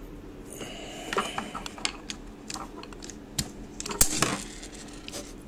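Hands handling a freshly stripped two-core power cord on a tabletop: a string of light clicks and short scrapes, loudest in a cluster about four seconds in.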